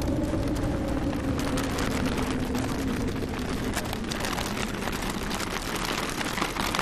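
Outdoor city ambience: steady traffic rumble, with an engine hum that fades away over the first two or three seconds.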